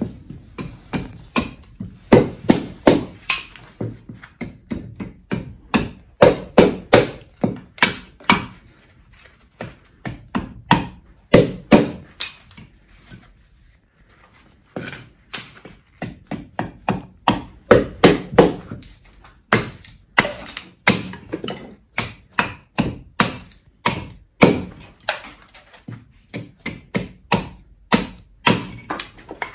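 Kharkiv Forge Russian-style bearded axe hewing green wood on a chopping block: a long run of sharp blade strikes, about two to three a second, with a short pause about halfway through.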